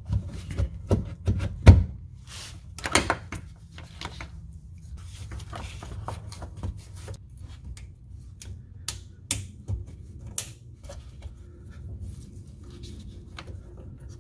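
Plastic clicks and knocks from gloved hands fitting a plastic emissions vent solenoid, pushing its hose and electrical connector onto it. The loudest knock comes a little under two seconds in.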